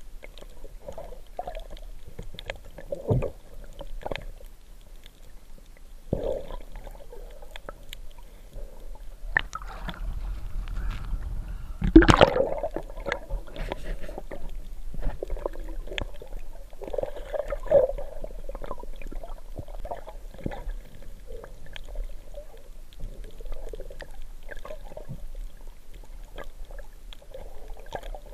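Muffled underwater sound picked up through a camera housing: scattered clicks and knocks as a gloved hand works the seabed. A rush of gurgling water swells about ten seconds in, with a loud knock near twelve seconds.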